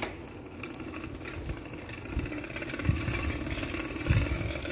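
Crushed aluminium beer can wedged by the brake against a bicycle's turning wheel, rattling in a fast continuous buzz, with a few low knocks along the way.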